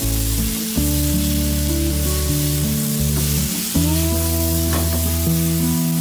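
Beef and vegetables sizzling in a frying pan as they are stirred and tossed together, with background music of sustained notes playing over it.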